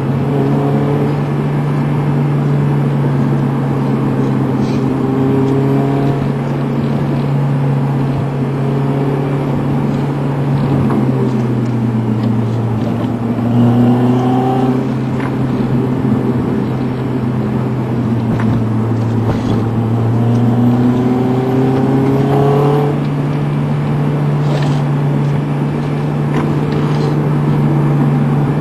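Car engine drone and road noise heard from inside the cabin while driving at about 40 mph. The engine note sags in the middle and climbs again toward the end, with several rising surges as the car speeds up.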